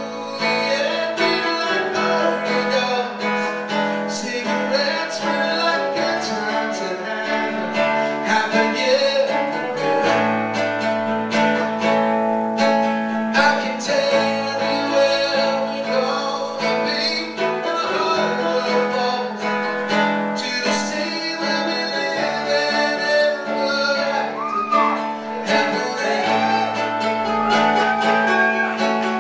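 Live song: a man singing over a strummed acoustic guitar.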